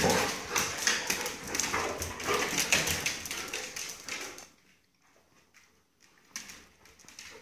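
Dogs, among them a German shepherd and a golden retriever, scuffling in rough play: a busy jumble of scratching and knocking sounds that dies away about four and a half seconds in, with one brief flurry near the end.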